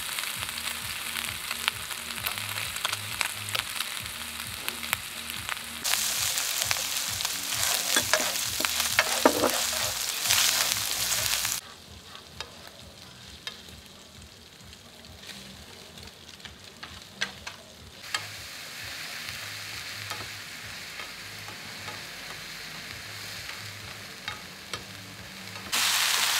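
Lamb and vegetables sizzling in oil in a frying pan as they are stir-fried, with scattered clicks of utensils against the pan. The hiss changes level abruptly several times, dropping to a quieter stretch a little before halfway with more distinct clicks, and rising again near the end.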